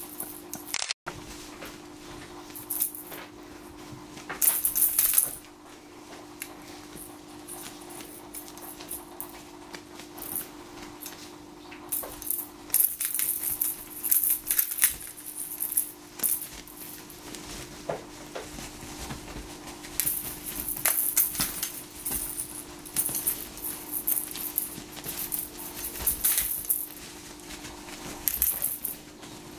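Jingle bell in a cat wand toy ringing in irregular bursts as a kitten bats at it and the toy is swung, over a steady hum.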